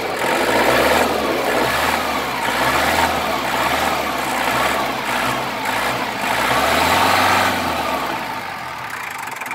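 Shibaura D335 compact tractor's diesel engine running and being revved up and back down, its pitch rising and falling, loudest about a second in and again around seven seconds.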